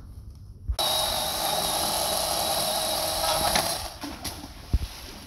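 Chainsaw running at high revs, cutting deadfall. It comes in suddenly about a second in, holds steady, and drops away about four seconds in, followed by a couple of sharp knocks.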